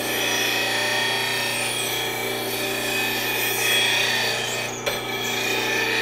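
Delta bench grinder running steadily with a bowl gouge pressed against the wheel: a constant motor hum under the continuous rasping hiss of the gouge's edge being ground.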